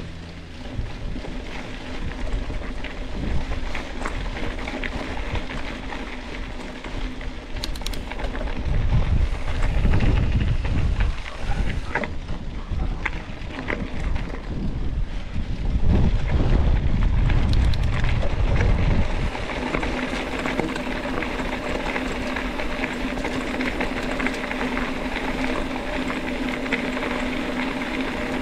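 Wind buffeting the microphone during a mountain bike ride, over the steady rolling noise of the bike on a dirt trail with small rattles. Heavier gusts of wind rumble come about nine seconds in and again from about fifteen to nineteen seconds.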